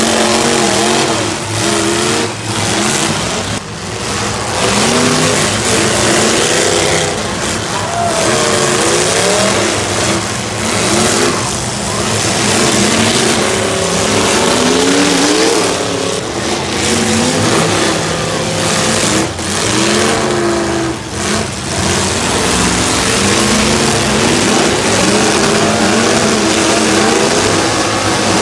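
Several full-size demolition derby cars' engines revving hard at once, their pitches rising and falling as the drivers floor them, with dull crashes of cars hitting each other now and then.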